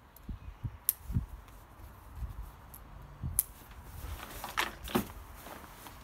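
Two plastic buckle clips on a Berghaus Trailhead 65 rucksack snapping shut, one sharp click about a second in and another about three seconds later. Soft knocks and rustling of the fabric follow as the pack is handled and stood upright near the end.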